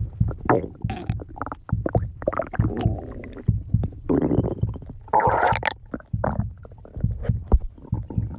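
A hungry person's stomach growling: an irregular run of short gurgles and squelchy bubbling, with a few longer squeaky rumbles between brief pauses.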